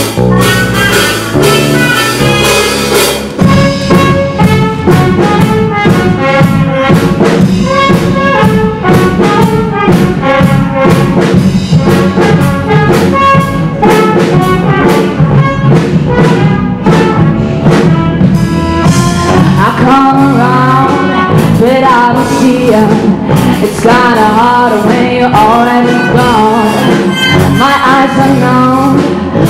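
A live band playing a horn-led jazz-pop number: trumpet and saxophone over electric guitars and keyboard, with a steady beat.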